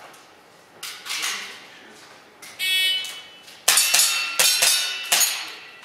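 Electronic shot-timer start beep, then a rapid string of about five shots from a gas blowback airsoft pistol (Tokyo Marui Hi-CAPA 4.3 custom running on HFC134a gas), with the ring of steel target plates being hit between the shots.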